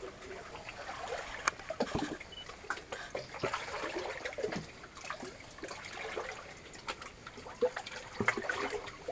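People wading through shallow water along a flooded mine adit: irregular sloshing and splashing footsteps over a steady trickle of water.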